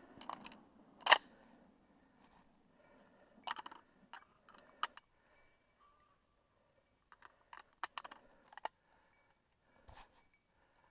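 Sharp mechanical clicks and knocks in irregular clusters, a single very loud one about a second in, then groups of lighter clicks.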